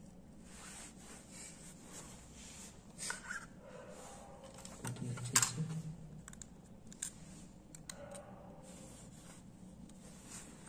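Small clicks and scrapes of hands handling a Redmi Note 7 Pro's plastic back panel and internal parts during reassembly, with one sharper click about five seconds in.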